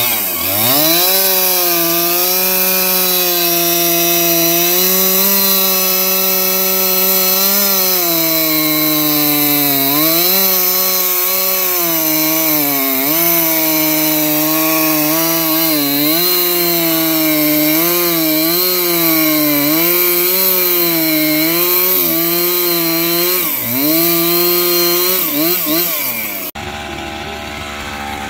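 Gas chainsaw running at full throttle while bucking a large log. The engine pitch dips and recovers again and again as the chain bites into the wood under load. Near the end it switches abruptly to a quieter, steadier engine sound.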